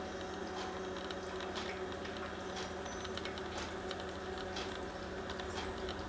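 Faint, irregular short ticks from small birds feeding at a wire-cage suet feeder, heard over a steady low hum.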